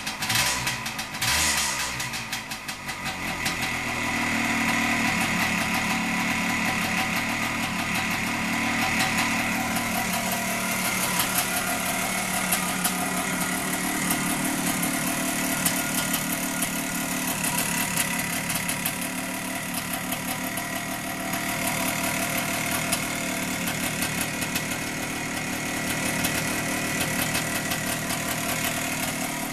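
1975 Harley-Davidson SX250's two-stroke single-cylinder engine firing unevenly for the first couple of seconds as it catches, then running steadily at idle.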